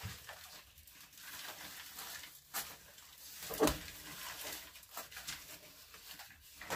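Potting mix poured from a stainless steel bowl into a seed tray and spread and patted down by hand: soft rustling and scraping, with two light knocks, the louder about three and a half seconds in.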